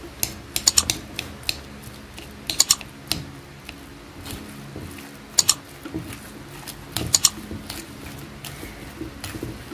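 A metal spoon clinks and scrapes against a ceramic mixing bowl as a thick chopped banana heart mixture is stirred. The sound comes in irregular clusters of quick, sharp clicks, a few at a time, with short pauses between.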